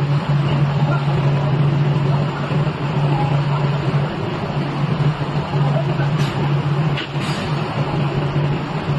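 Machinery of a CNC glass cutting table running with a steady low hum over a noisy background, the hum briefly dropping out a few times.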